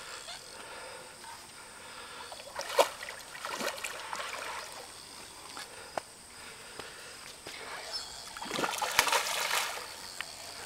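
A hooked carp splashing as it thrashes at the water's surface: two short splashes about three seconds in, then a longer spell of splashing lasting about a second near the end.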